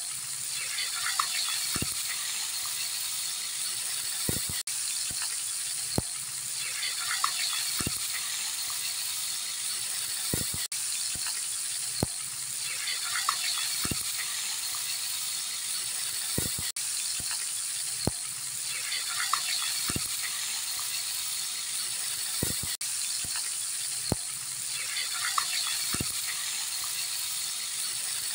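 Fish fillets deep-frying in hot oil: a steady sizzle of bubbling fat, with a short sharp tick about every two seconds.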